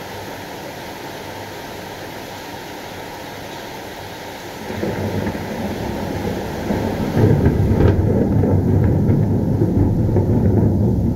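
Steady rain, then a roll of thunder builds about halfway through and swells into a loud, deep rumble about two-thirds in.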